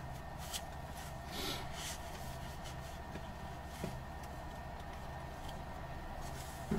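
Truck's diesel engine idling steadily, a low even hum, with a few faint rustles.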